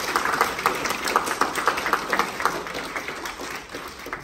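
Audience applauding, a dense spatter of many hand claps that thins out and fades toward the end.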